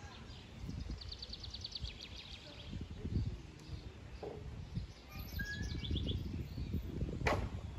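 Small songbirds singing rapid trilled phrases, twice, over a steady low rumble of outdoor noise; a single sharp click near the end.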